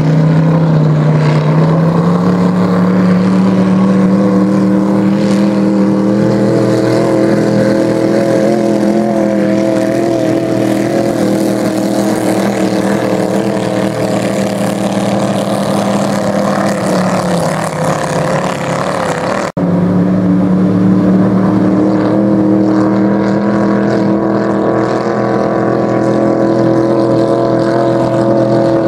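Vintage hydroplane race boat's big-block engine with open exhaust running hard at racing speed: a steady, buzzing engine note that steps up in pitch about a second and a half in. It breaks off abruptly for an instant about two-thirds of the way through, then carries on at the same pitch.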